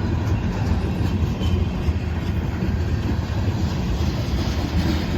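Norfolk Southern manifest freight train rolling slowly through a grade crossing: a steady low rumble from the cars and wheels on the rails.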